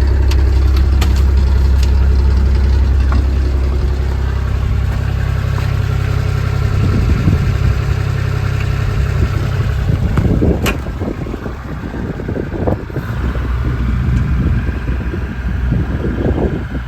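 2015 JCB 8018 mini excavator's diesel engine running, a steady low drone for the first half. After about ten seconds, with a sharp click, it turns quieter and more uneven.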